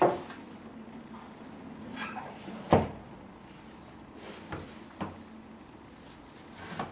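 A handful of short knocks and thumps as board books are handled and knocked against a wooden floor, the loudest a little under three seconds in.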